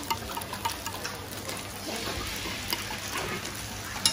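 Batter sizzling in a dimpled cast-iron cake pan over a charcoal stove: a steady hiss with a few small clicks of a metal ladle.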